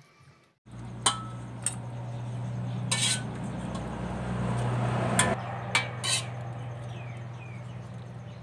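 Metal ladle stirring in a stainless-steel pot and scooping out palm seeds in syrup, with several sharp clinks of the ladle against the pot, then syrup pouring into a ceramic bowl around the middle. A steady low hum runs under it.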